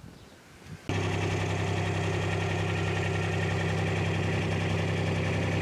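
Kubota RTV-X900 UTV's three-cylinder diesel engine running steadily, cutting in suddenly about a second in after a quiet moment.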